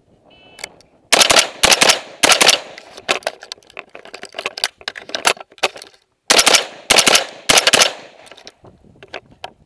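AR-15 rifle firing two quick strings of shots, heard very loud from a camera mounted on the rifle itself. The first string starts about a second in and the second about six seconds in, with lighter clicks between them.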